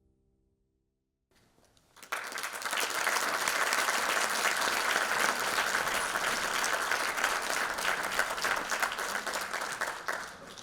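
Audience applauding. The clapping starts about two seconds in, holds steady, and fades near the end.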